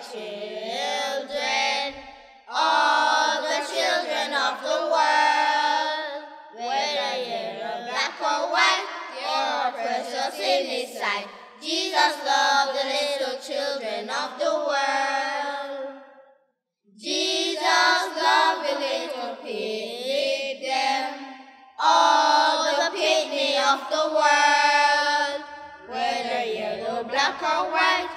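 Children singing a song in phrases, with wavering held notes and a short break a little past halfway.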